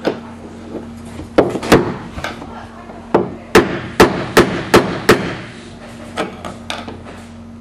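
Hammer blows on the end of a flat-blade screwdriver wedged into a plastic-welded spa receptacle, driving it to break the fitting loose from the acrylic shell. About a dozen sharp knocks, the hardest in the middle and a few lighter taps near the end.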